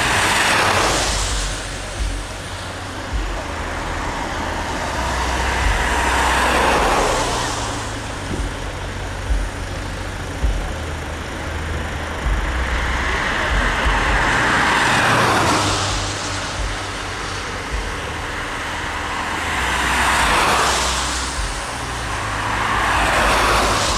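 Road traffic: several vehicles pass one after another, each rising and then fading with a falling swoosh of tyre and engine noise. A low wind rumble sits underneath.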